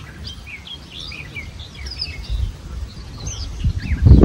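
Small birds chirping and twittering in quick, short, curving calls, over a low rumble of wind on the microphone that grows louder near the end.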